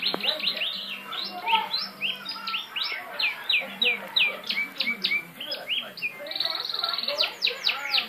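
Caged songbird singing a fast string of short, sharply falling chirps, several a second, broken about six seconds in by a brief, rapid buzzy trill.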